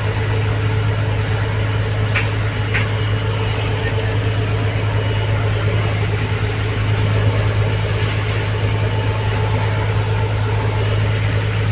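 A motor running steadily, heard from on board: an unbroken low hum with a wash of noise over it. Two faint clicks about two seconds in.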